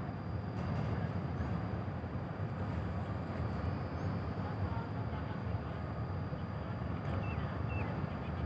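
The passenger ship Kelud's engines run with a steady low rumble as the ship starts to manoeuvre off the quay. A faint steady high whine sits over it, and a few short chirps come near the end.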